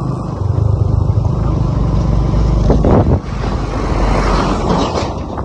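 Motorcycle engine running steadily as the bike rides along, with wind rushing over the microphone in gusts. An oncoming tractor passes near the end.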